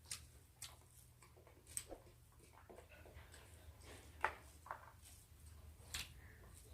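Quiet eating sounds: scattered soft clicks and smacks of chewing and food being handled, over a low steady hum.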